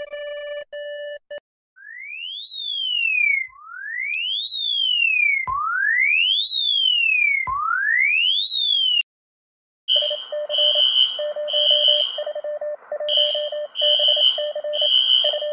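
Electronic emergency alert tones in sequence: a steady buzzing tone that cuts off about a second in, then four sweeps that each climb sharply in pitch and slide back down, about two seconds apiece. After a brief gap comes a rapid pulsing beep on two pitches.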